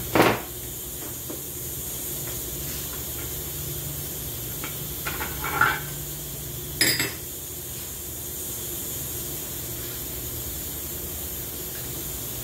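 Metal automatic-transmission parts being handled and set down on a workbench: a loud metallic clank right at the start, a few lighter clinks with a brief ring about five to six seconds in, and another clank about seven seconds in, over a steady hiss.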